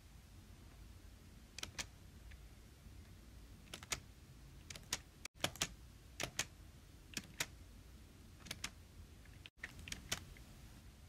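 Close-miked ASMR clicking: sharp, short clicks at an irregular pace, many coming in quick pairs, about a dozen in all.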